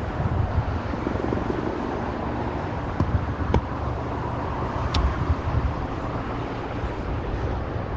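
Steady low engine rumble, with a few sharp clicks near the middle.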